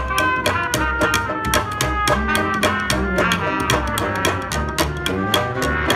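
Acoustic trad-jazz street band playing an instrumental passage: trumpets and saxophone hold melody lines over a plucked upright bass and a steady strummed chop about four beats a second.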